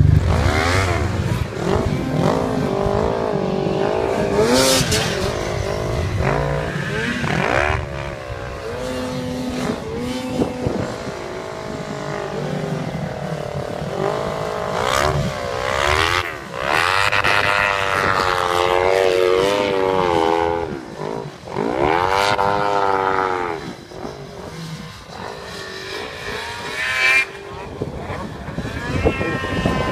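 Several snowmobile engines revving, their pitch rising and falling again and again with the throttle as the sleds climb and turn in deep snow.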